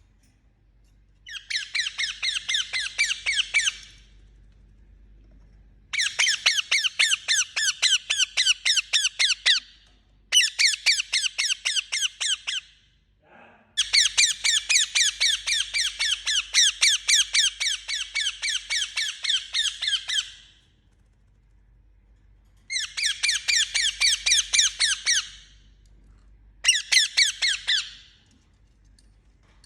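Indian ringneck parakeet squawking in six bouts of fast, evenly repeated harsh notes, each bout lasting from about one and a half to six seconds, with short pauses between.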